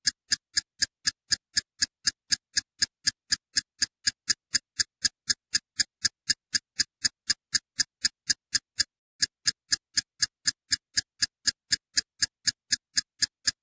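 Sharp, even ticking, about four clicks a second, the sound effect laid under a film countdown leader; one beat drops out about two-thirds of the way through.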